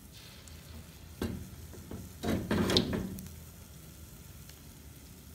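Balls of bun dough deep-frying in a pot of hot oil, with a steady sizzle. The sizzle flares up briefly about a second in and more strongly around two to three seconds in, as a fresh ball of dough drops into the oil.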